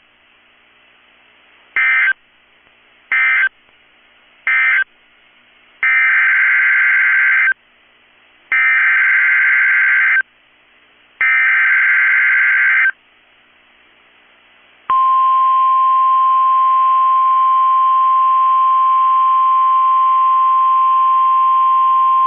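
NOAA Weather Radio Specific Area Message Encoding (SAME) data bursts: three short buzzy bursts that mark the end of the previous warning, then three longer bursts carrying the header for the next warning. About fifteen seconds in, the steady single-pitched 1050 Hz Weather Radio warning alarm tone starts and holds.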